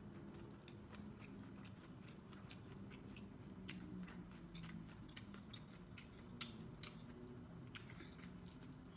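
A person chewing and biting kernels off a cooked corn on the cob: quiet, crisp clicking and mouth sounds that grow denser and louder about four seconds in.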